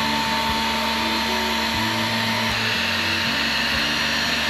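Electric heat gun running steadily, its fan blowing a hiss of hot air while it warms thin-wall PVC pipe to soften it, with a faint thin whine that fades out about halfway through.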